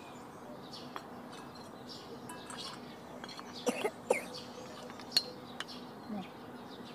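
Birds chirping faintly in the background, with a few sharp clinks and knocks of a steel ladle against bowls about midway.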